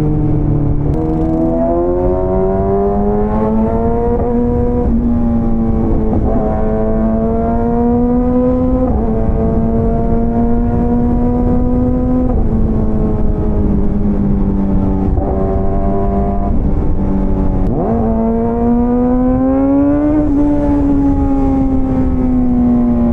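Motorcycle engine running under load while riding, its pitch climbing slowly in each gear and stepping down several times as it shifts, over a steady low rumble of wind and road noise.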